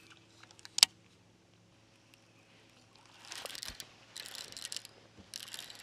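A sharp click about a second in, then a baitcasting reel cranked in three short bursts, about a second apart, as a jerkbait is worked back in.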